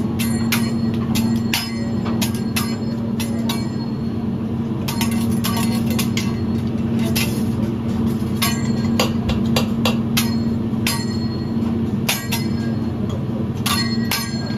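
Metal spatulas and utensils clinking and tapping on a flat-top teppanyaki griddle: sharp, irregular clicks, often several a second, over a steady hum.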